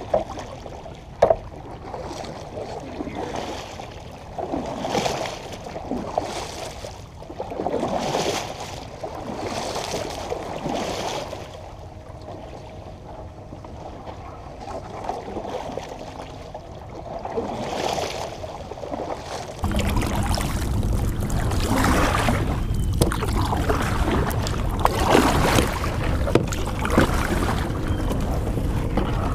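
Kayak paddle strokes through water, a swishing splash every second or two, with a couple of sharp knocks near the start. About two-thirds of the way in the sound changes suddenly to a steady low rumble of wind on the microphone, with paddling still heard over it.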